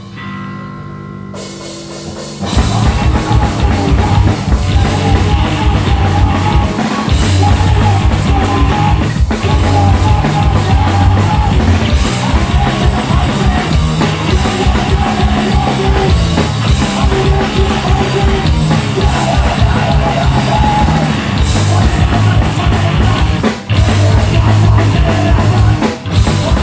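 Hardcore punk band playing live: a guitar rings alone for about two seconds, then the full band comes in loud with distorted guitars, bass and fast drums, with a couple of brief stops.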